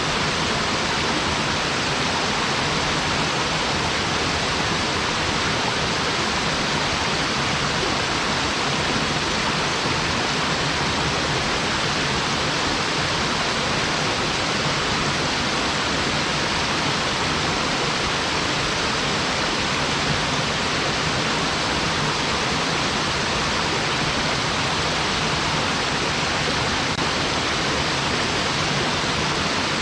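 Small mountain waterfall, falling in three streams, pouring into its pool: a steady, even rush of water with no breaks.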